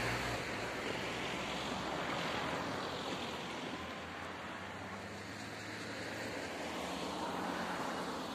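Peugeot hatchback driving away over the level crossing: engine and tyre noise fading into a steady rushing sound, which swells again briefly near the end.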